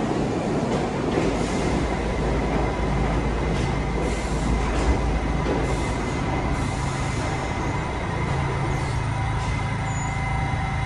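New York City Subway R68-series train rolling through the station and coming to a stop, with a steady rumble of wheels on the rails, wheel squeal and a thin steady high tone.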